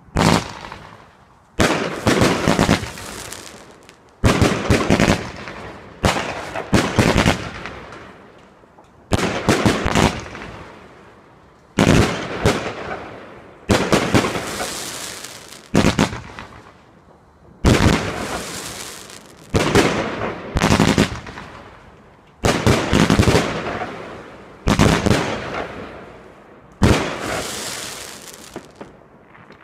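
Weco Black Mamba 36-shot firework cake firing its shells three at a time: a dozen or so volleys of sharp bangs about two seconds apart, each with the shells bursting overhead and fading away.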